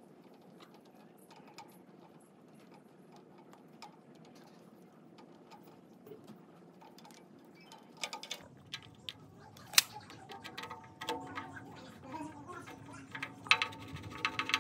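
Light clicks and small metallic taps of parts and tools being handled, becoming louder, sharper knocks and clinks with some ringing from about eight seconds in.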